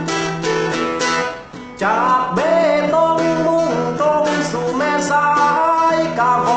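A man singing a slow Thai song to his own plucked phin (a northeastern Thai lute). A short plucked phrase is followed by a brief dip, and the voice comes in about two seconds in over the plucking.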